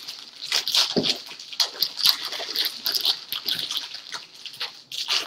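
Plastic packaging around a bundle of diamond-painting drill baggies crinkling and rustling as it is handled, a rapid, irregular crackle.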